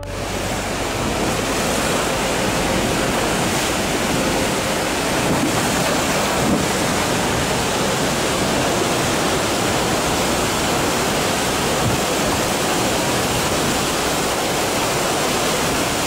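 Rhine Falls waterfall rushing steadily, heard at close range from below the falls.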